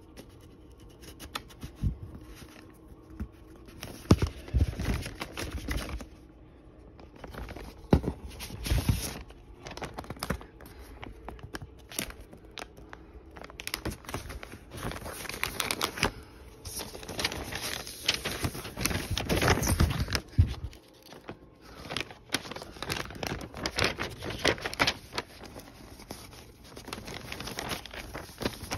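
Paper and cardboard rustling and scraping as a record's paper inner sleeve is handled and slid out of its cardboard album jacket, with occasional handling thumps.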